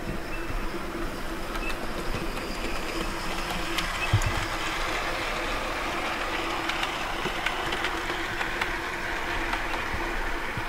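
OO gauge model of the steam locomotive Blue Peter running with its coaches on the layout track: a steady hum with a rolling rumble and scattered light clicks from the wheels on the rails. The running noise is loudest around the middle as the train passes.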